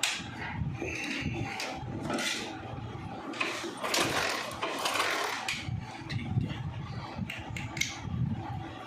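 Hand tools working on a motorcycle engine: irregular metal clicks, taps and scraping, with a longer stretch of scraping in the middle. No engine is running.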